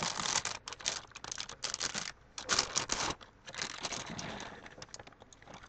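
A cracker box's plastic inner bag being torn open and crinkled by hand, in irregular bursts of crackling that thin out near the end.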